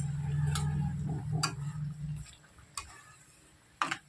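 Metal spatula clicking against a steel kadai as simmering dal is stirred, a few sharp clicks spread out, two close together near the end. A low hum runs through the first two seconds or so and then stops.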